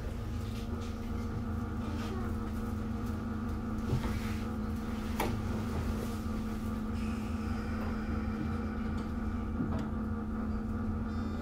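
A Sotetsu New 7000 series electric train standing at the platform with its doors shut: a steady hum from its onboard electrical equipment over a low rumble, with a few faint clicks.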